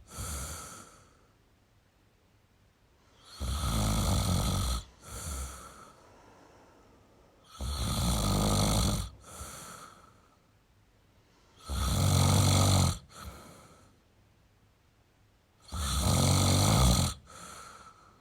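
A person snoring in a steady rhythm. About every four seconds comes a loud, rasping snore lasting a little over a second, then a shorter, softer breath sound, with four full snores here.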